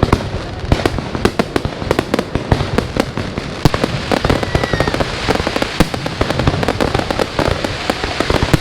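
New Year fireworks display going off continuously: a dense run of sharp bangs and crackles, several a second, with a brief whistle about four seconds in.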